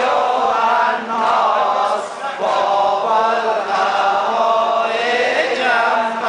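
A man chanting a religious recitation into microphones, amplified through a sound system, in sustained wavering phrases of about a second each with short breaks between them.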